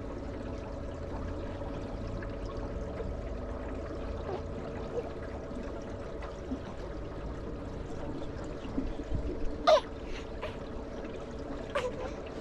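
Canal boat under way: its motor running at a steady hum, with water trickling along the hull. Two brief sharp sounds near the end.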